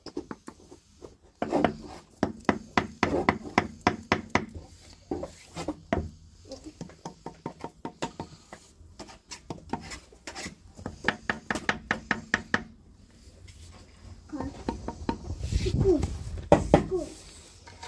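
Rapid, rhythmic strokes of a hand tool on wood, about five a second, in two runs of a few seconds each, with scattered single strokes between them.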